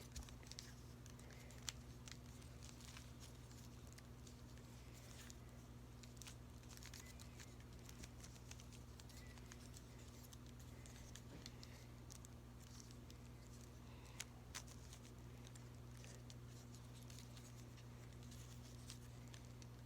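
Faint, scattered clicks of a 3x3 Rubik's Cube's layers being twisted by hand, with a sharper click about two seconds in and two more near fourteen seconds, over a steady low hum.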